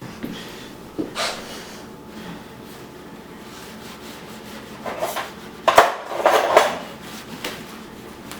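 Parts of a car radio and display unit being handled on a workbench: scattered knocks, clicks and rubbing of plastic and metal pieces, with a louder cluster of knocks and scrapes past the middle.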